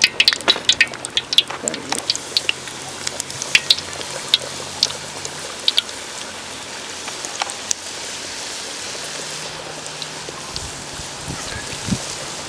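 Chicken samosas frying in hot oil: a steady sizzling hiss with many sharp pops and crackles. The crackles are thickest in the first few seconds, just after the samosas go in, then thin out to a steadier sizzle with scattered pops.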